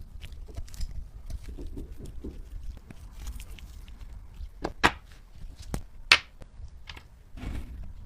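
Scattered light taps and clicks of small objects being handled, with two sharper clicks about five and six seconds in.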